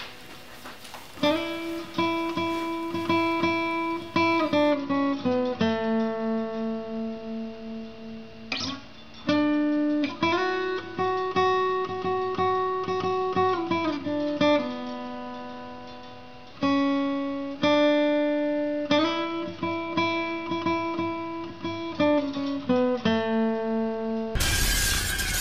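Acoustic guitar music: strummed chords that ring on and change every second or two. About a second before the end it cuts to a sudden burst of loud noise.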